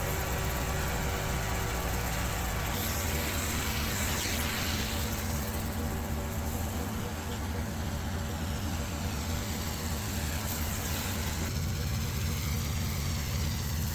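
Pressure washer's engine running steadily.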